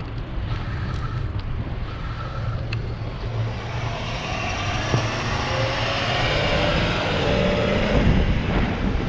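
City street traffic heard from a moving bicycle, with wind rumbling on the microphone. A vehicle's rushing noise builds from about three seconds in and stays loud to the end. Two short electronic beeps come in the first three seconds.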